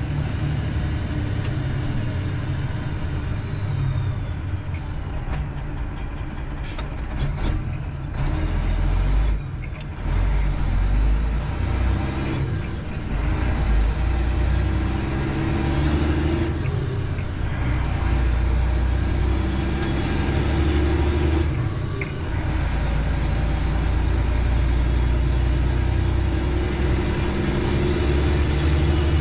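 Semi truck's diesel engine heard from inside the cab while driving and working up through the gears: a steady low drone with a whine that climbs in pitch and falls back several times, with short dips in loudness at the gear changes.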